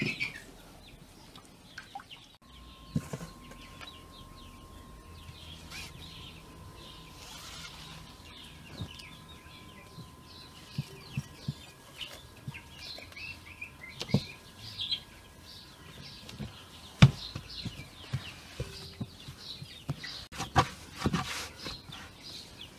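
Chickens clucking and small birds chirping in a yard, with scattered knocks and rustles of dough being handled, the loudest about three-quarters of the way through. A faint steady high tone runs under the first two-thirds.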